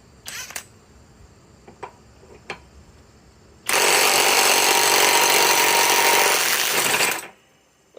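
Kobalt mid-torque cordless impact wrench hammering on a large nut for about three and a half seconds, then stopping abruptly; it breaks the nut loose. A few light clicks come before it.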